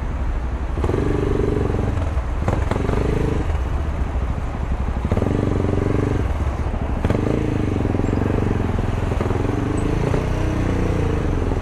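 Motorcycle engine at low speed in traffic, the throttle opened and eased off several times so the engine note rises and drops in short spurts.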